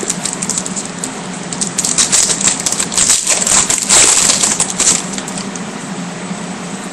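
Trading cards being handled and flipped, a rustling crackle with many small clicks, densest from about two to five seconds in.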